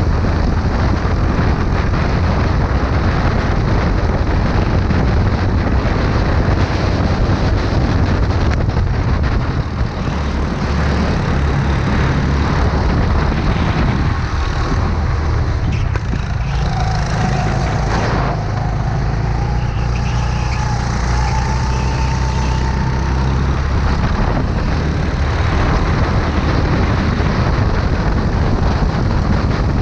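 Rental go-kart engine running hard at racing speed, heard from the driver's seat, with a second kart running just ahead. About halfway through, for several seconds, the engine note changes and a higher whine rises slightly.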